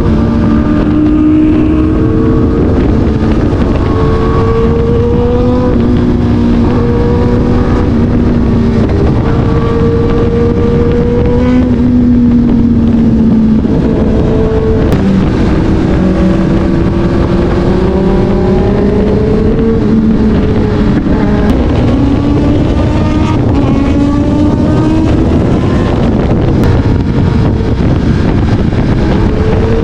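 Several superbike engines running together. Their pitches rise and fall slowly and independently over a heavy low rumble.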